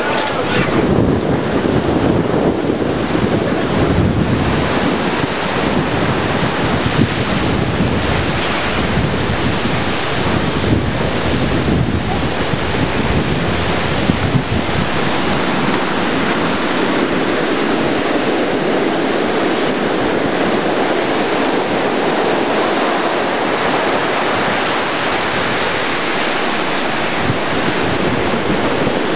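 Heavy storm surf from a hurricane crashing and rushing up the beach, mixed with strong wind buffeting the microphone. The low wind rumble is gusty in the first half and eases about halfway through, leaving mostly the steady rush of the surf.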